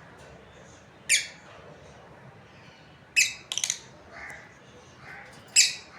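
Lovebirds giving short, shrill squawking calls: one about a second in, a quick run of four or five around three seconds in, and another near the end, with a few softer chirps between.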